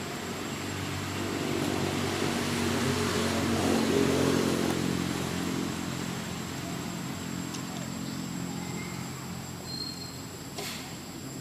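A motor vehicle engine passing by: a steady engine hum that grows louder to a peak about four seconds in, then fades away.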